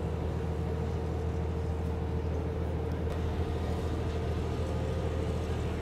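Kenya Railways commuter train rolling past on the tracks: a steady low rumble with a droning hum.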